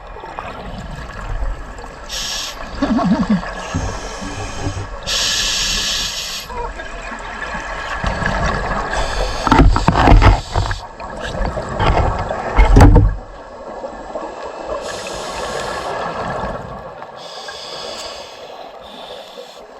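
Scuba diver breathing through a regulator underwater: drawn-in breaths hiss from the demand valve, and exhalations leave as loud rumbling, gurgling bubbles.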